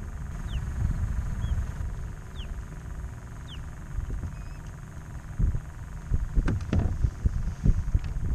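Wind buffeting the camera microphone as a steady low rumble on open water, with a few short falling bird calls in the first few seconds. From about five and a half seconds in come a run of sharp knocks and taps, gear handled against the kayak.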